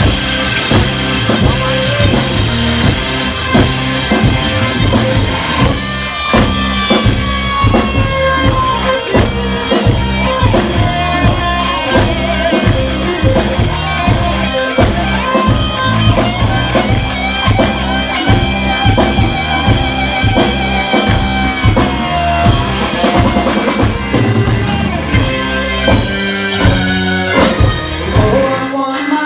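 Live rock band playing an instrumental passage: drum kit, bass, electric guitar and keyboards. A held, wavering lead line sings over the band from about six seconds in until about twenty-three seconds.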